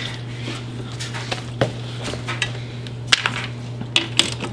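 A few sharp, scattered metallic clicks from a ratchet wrench working the 10 mm bolts of the car's ECU, over a steady low hum.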